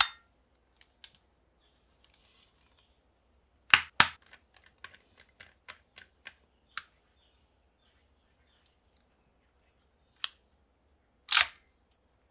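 Hard plastic clicks and snaps of the CSM Delta Gear toy belt parts being fitted and worked by hand. A click at the start, two loud snaps about four seconds in followed by a run of lighter clicks, then two more clicks near the end.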